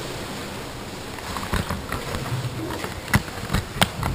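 Sea water sloshing and splashing around a kayak in a sea cave, with a run of sharp slaps and splashes starting about a second and a half in; the two loudest come near the end.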